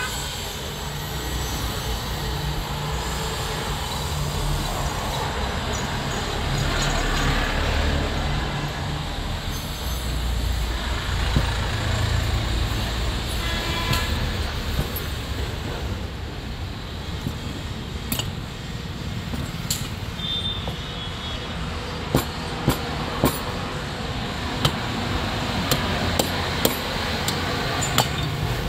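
Steady low rumble of vehicle engines, with sharp metallic clinks of alternator parts and hand tools being picked up and set down on the workbench, most of them in the last third.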